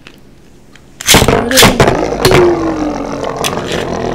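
Two Beyblade spinning tops launched into a plastic stadium about a second in, then clattering and knocking against each other and the stadium as they spin, with a brief falling whine.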